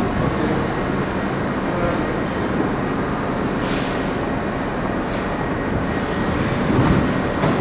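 R62 subway train rolling slowly into the platform and braking: a steady rumble of wheels on rail with faint high wheel squeal, and a brief hiss about three and a half seconds in.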